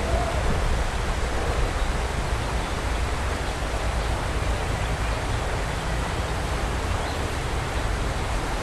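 Steady outdoor background noise: an even rushing hiss over a low rumble, with no distinct events.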